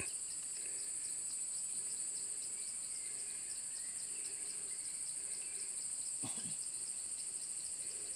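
Steady high-pitched chorus of insects, with a second insect call pulsing several times a second just below it. A brief low sound breaks in about six seconds in.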